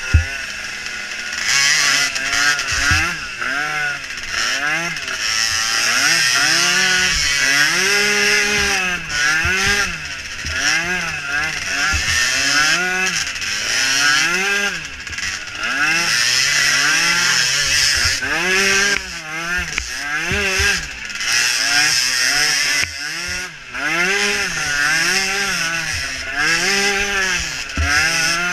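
Small engine of a micro youth ATV being ridden hard, its pitch climbing and dropping over and over, about once every second or two, as the throttle is worked through the course.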